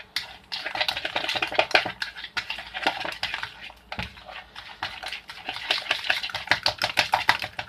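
Coconut-flour and egg batter being beaten with a utensil in a bowl: a quick, continuous run of clicks and scrapes against the bowl, with a brief pause about three and a half seconds in.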